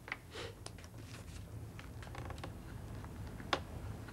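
Faint scattered clicks and knocks of small handling at a wooden desk over a low steady hum, with one sharper knock about three and a half seconds in, as the boy slumps onto the desk.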